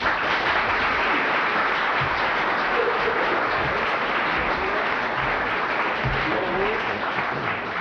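Audience applause: dense, steady clapping that starts suddenly and eases slightly near the end.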